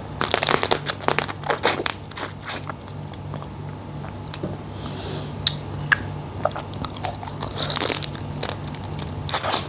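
Close-up eating sounds of a person biting into a roe-filled crab in fish sauce: crunching and cracking of the shell with wet sucking at the meat and roe. A dense run of crunches about a second in, scattered cracks after it, and longer sucking sounds near the end.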